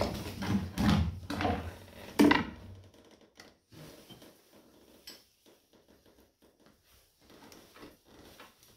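Hand tools clinking and knocking on a scooter's variator: a ratchet on the variator nut and an adjustable spanner wedged against the fan fins, with a few loud clanks in the first couple of seconds and then faint scattered clicks, as the nut is strained at and stays stuck fast.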